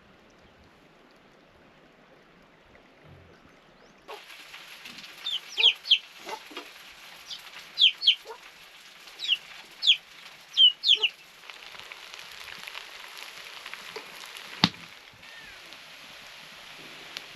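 Chickens calling: a series of short, high, falling calls, often in pairs, with a sharp knock a few seconds later.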